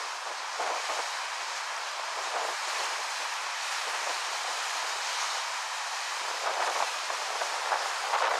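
Steady rushing of wind outdoors, stirring grass and leaves, with a few stronger gusts that briefly buffet the microphone late on.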